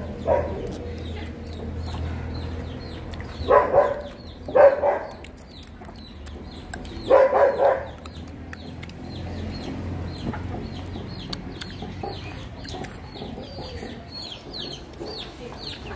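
Poultry calling: a few louder pitched calls in the first half, with short high chirps throughout that grow busier near the end.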